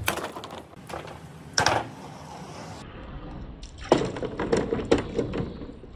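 A large plastic ball splashing into a clear plastic box filled with water and smaller balls: sharp knocks and splashing near the start, then a second burst of rapid clattering knocks and splashing about four seconds in.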